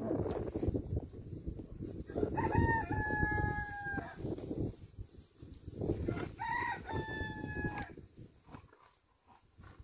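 A rooster crowing twice, each crow a short rising note and then a long held note that falls slightly, over a low rustling noise.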